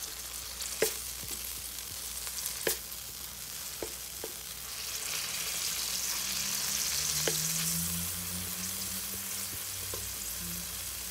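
Tomato wedges sizzling in hot oil in a wok, stirred with a wooden spatula that now and then clicks and scrapes against the pan. The sizzle grows louder about halfway through as the tomato softens.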